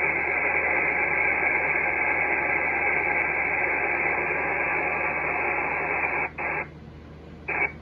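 Icom IC-7300 transceiver's speaker hissing with 10-metre band static on upper sideband, an even hiss narrowed by the receive filter. About six seconds in it cuts out, then comes back twice in short bursts.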